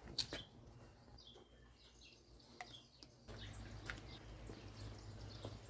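Faint background: birds chirping now and then over a low steady hum, with a couple of light clicks near the start.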